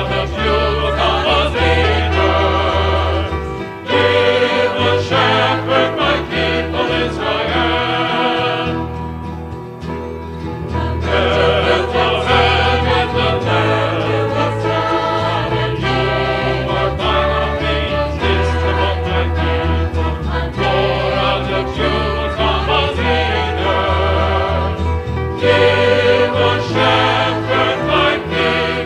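Choir singing a worship song. The singing thins out and softens for a couple of seconds about nine seconds in, then the full choir comes back.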